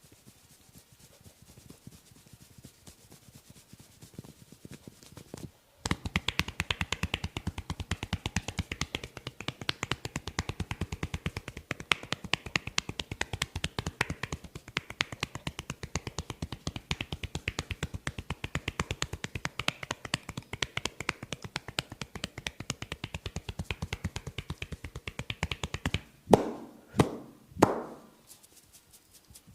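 Percussive head massage: a fast, steady run of light hand taps on the head that starts about six seconds in and lasts about twenty seconds, followed near the end by three louder slaps.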